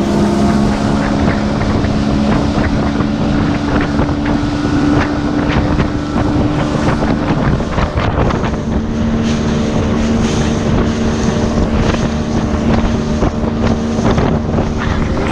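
Small motorboat's engine running at speed, its pitch dropping slightly about halfway through, with wind buffeting the microphone and water knocking against the hull.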